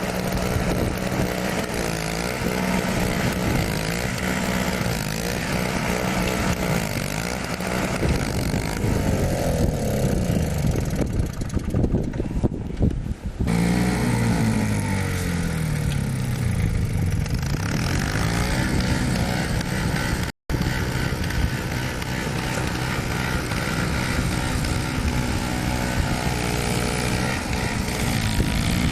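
Two-stroke snowblower engine running, its pitch rising and falling over and over as the load changes. The sound cuts out for an instant about twenty seconds in.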